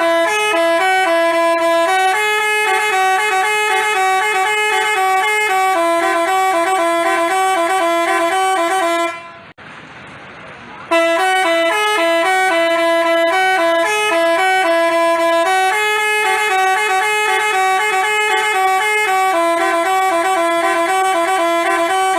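Basuri telolet bus horn playing its multi-note tune. The tune breaks off about nine seconds in and starts over about two seconds later.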